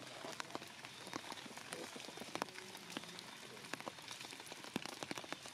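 Rain falling steadily: a continuous hiss with many sharp, irregular raindrop hits on nearby surfaces.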